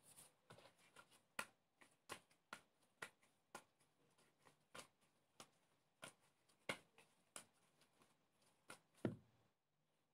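Soft bread-roll dough being kneaded and handled with gloved hands in a bowl: a string of irregular small sticky slaps and squelches, about two or three a second. A louder thump comes near the end as the dough is set down in the bowl.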